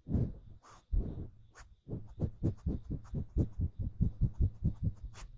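A few separate soft, low thumps close to the microphone, then from about two seconds in a quick even run of them, about four to five a second.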